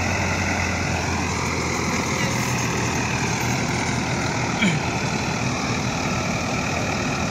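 Rice combine harvester running with a steady, constant drone from its engine and machinery.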